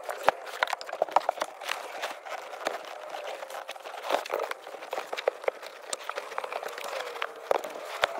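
Rustling and many irregular knocks and clicks of bedding and camping gear being handled and packed away inside a Land Rover Defender.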